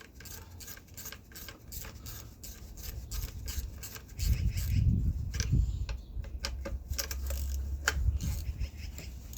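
Repeated rubbing or scraping strokes, several a second. About four seconds in, a louder low rumble takes over, with a few sharp knocks.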